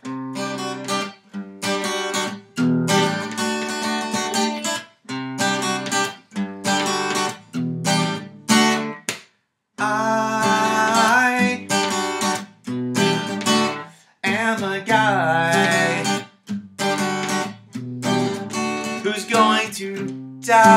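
Acoustic guitar strummed in short bursts of chords with brief stops between them, and a man singing over it from about halfway through.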